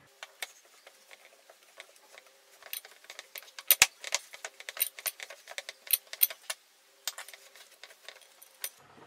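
Bangles jangling and clinking, with taps against a glass mixing bowl, as bare hands knead crumbly maida dough into a tight dough. The sharp clinks come irregularly, thickest in the middle, with a short lull near the end.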